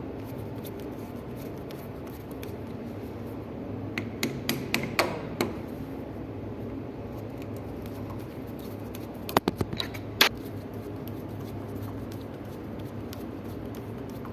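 Sharp clicks and taps of hand tools and metal parts being handled while working on a door closer, over a steady low hum. There is a cluster of several taps about four to five and a half seconds in, and a few more around ten seconds.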